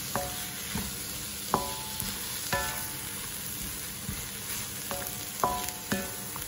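Carrots, green beans and seafood sizzling steadily in a wok as they are stir-fried with a wooden spatula. The spatula knocks against the pan half a dozen times, and each knock rings briefly.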